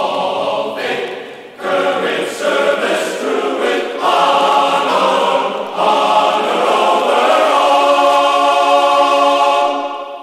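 Choral music: voices singing in harmony, ending on a long held chord that fades out near the end.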